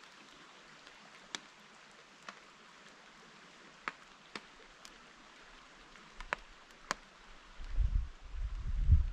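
Light rain falling as a steady hiss, with single drops tapping sharply close by now and then. Near the end, loud low rumbling rustles start right at the microphone.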